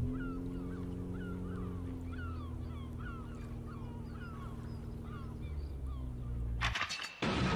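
Birds calling over and over in short falling calls, about two a second, over a steady low engine drone. Near the end the drone cuts off and a burst of clicks and a loud rushing noise begins.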